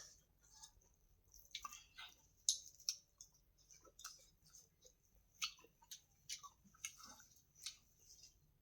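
Faint chewing close to the microphone: irregular soft crunches and wet mouth clicks of someone eating food.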